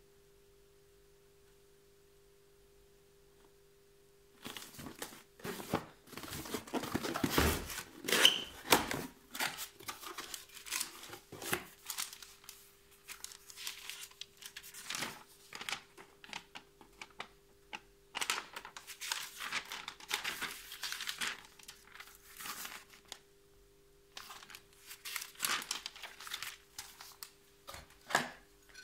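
Cardboard box and paper packaging being handled and unpacked: irregular crinkling and rustling of paper and cardboard with small knocks. It starts about four seconds in.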